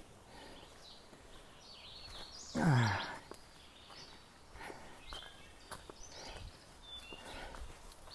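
A hiker's footsteps and walking-stick taps on a trail, with a few scattered bird chirps. About two and a half seconds in there is a short voiced exhale that falls in pitch.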